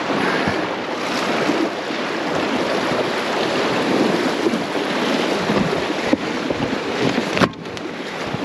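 Shallow, fast creek water rushing and splashing around a wading person's legs and an inflatable boat being dragged upstream, with wind buffeting the microphone. The sound drops away briefly about seven and a half seconds in.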